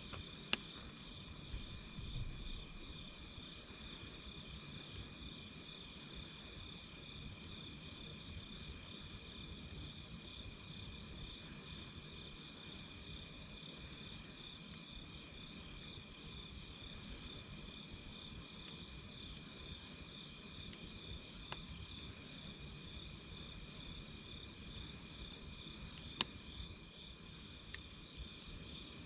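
Crickets trilling steadily over the low rumble of a campfire. A few sharp pops of burning wood stand out, the loudest about half a second in and again near the end.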